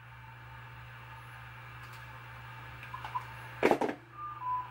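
Low steady hum with faint handling noise as objects are moved about, a brief knock and rustle about three and a half seconds in, then two short beep-like tones, the second slightly lower.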